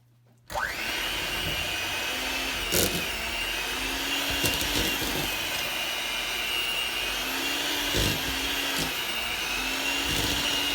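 Electric mixer switching on about half a second in and running steadily with a high whine, creaming butter, margarine and dark brown sugar, with a few knocks as the beaters hit the bowl.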